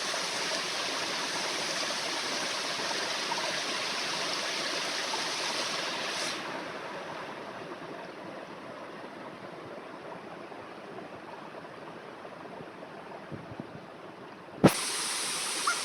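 Waterfall water rushing steadily. About six seconds in it turns quieter and duller, and a single sharp click comes near the end, after which the full, louder rush returns.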